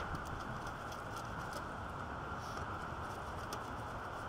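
Steady outdoor background noise, with faint light clicks and taps as a screwdriver works on the air-intake fittings in the engine bay.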